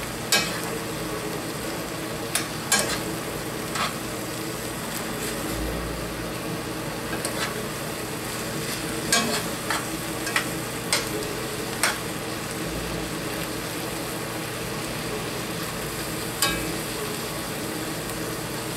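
Apple, sausage and bread-cube stuffing sizzling in a cast iron skillet as it is stirred, with a steady frying hiss and the utensil clicking against the pan now and then.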